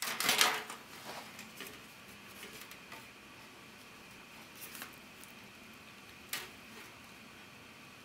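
Close handling of a plastic takeaway sushi tray: a rustling clatter at the start, then a few light clicks and taps as sushi rolls are picked up and set on a thin wooden serving boat, over a faint steady high-pitched hum.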